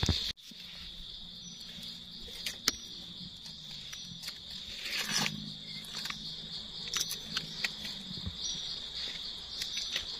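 Steady high-pitched chorus of insects in the forest, with scattered small clicks and rustles of dry leaf litter as mushrooms are cut free with a knife.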